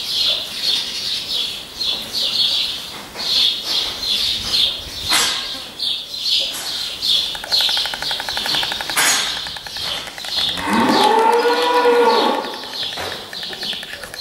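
A cow moos once, a single call about two seconds long that rises and falls in pitch, about eleven seconds in. A high chirping repeats steadily in the background throughout.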